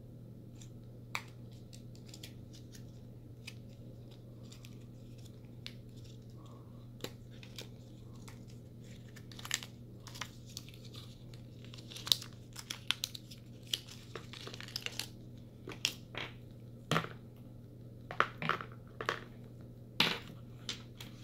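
Apple EarPods and their paper-and-plastic packaging handled by hand: scattered light crinkles, rustles and small clicks as the earphones and cable come out of their paper holder, sparse at first and busier in the second half. A faint steady low hum runs underneath.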